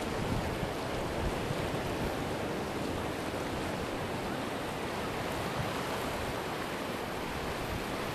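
Steady wash of sea surf against a rocky shore, with wind rumbling on the microphone.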